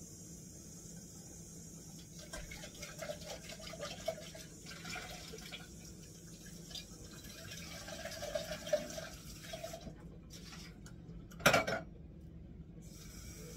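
Tap water running into a kitchen sink as metal food cans are rinsed, with light clattering, and one louder clunk near the end.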